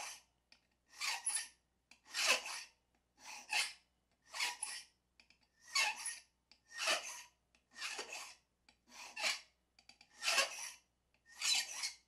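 Hand file rasping across a key blank in slow, even strokes, about one a second. This is the impressioning cut being filed down at pin position 1, where the blank showed a mark.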